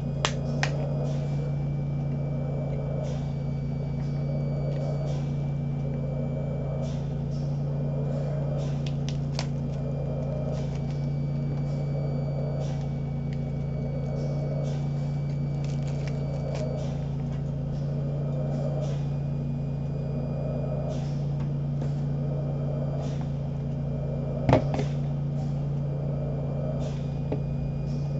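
Home ventilator running: a steady low hum with a soft swell about every two and a half seconds, as the machine cycles breaths. A few sharp clicks of small objects being handled, the loudest about three quarters of the way through.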